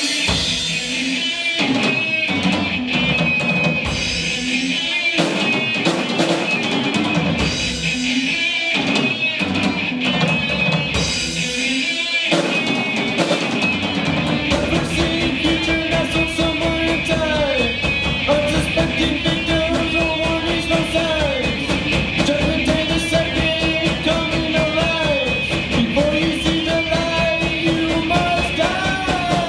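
Live rock played on a Tama drum kit and an electric guitar. For about the first twelve seconds the band plays stop-start hits with short breaks between them. After that the drums play continuously under held guitar notes that bend in pitch.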